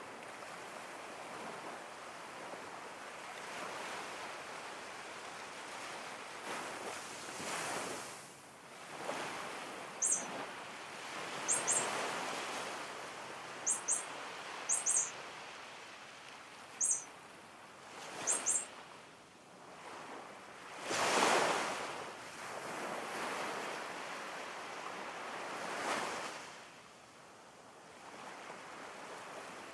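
Ocean surf: waves washing in and ebbing away in slow swells, with the biggest swell a little past two-thirds of the way through. Short, very high chirps, mostly in pairs, come several times in the middle.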